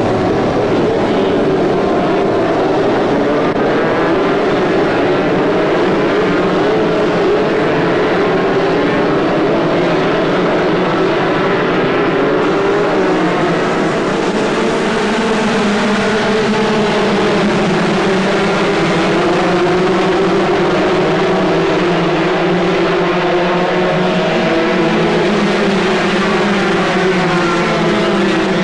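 A whole field of superkarts' two-stroke engines running together at high revs, a dense mass of many engine notes wavering in pitch without a break.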